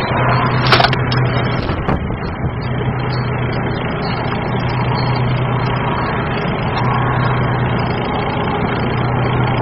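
Car engine running steadily at low speed, heard from inside the car's cabin with a window open, with a couple of sharp clicks in the first two seconds.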